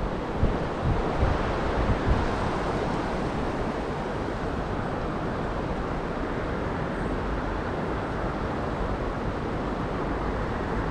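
Steady rush of river water flowing over a riffle, with a few dull low bumps in the first couple of seconds.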